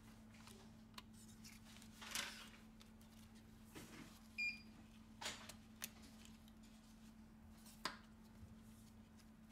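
Light clicks and taps of a phone's plastic inner cover and small parts being handled and pressed into place, with a short rustle about two seconds in. A brief high-pitched ring comes about four and a half seconds in. A faint steady hum lies underneath.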